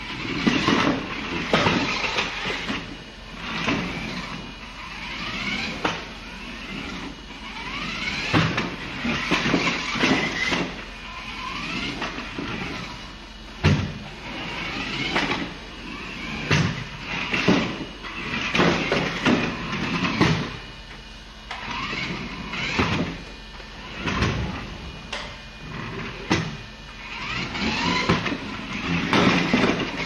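Remote-control car's motor whining, rising and falling in pitch in short surges as it speeds up and slows, with frequent knocks and clatters as the car drives and bumps about.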